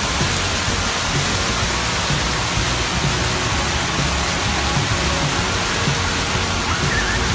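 Steady hiss and splash of a ground-level fountain's water jets spraying, with music underneath.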